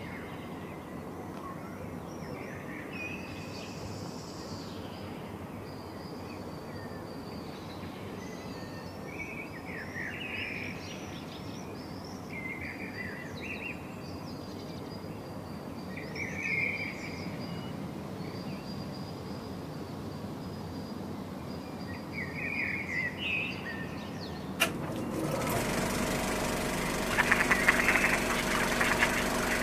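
Small birds chirping and singing on and off over a steady outdoor background. About 25 seconds in, after a click, a louder background takes over, with a low steady hum and a quick run of busier calls near the end.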